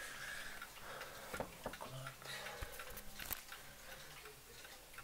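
Several mechanical clocks ticking at once, their ticks falling out of step with each other.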